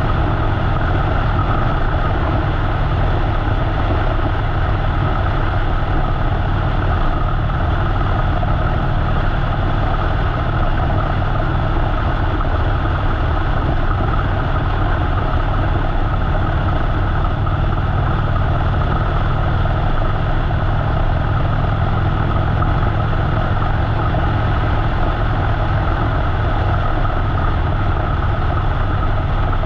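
Harley-Davidson V-twin motorcycle engine running steadily at a constant pace while riding, heard through a GoPro.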